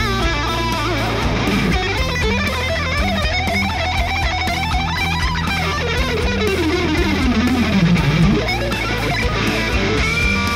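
Electric guitar lead played through a Hotone Ampero II Stage multi-effects amp modeler over a backing track. Held notes waver with vibrato, and a long descending run drops to a low note about eight seconds in.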